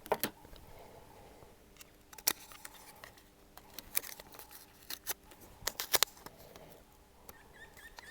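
Scattered small clicks and taps of hands and tools handling a smartphone and its broken screen during disassembly, irregular and light, over a faint steady hum.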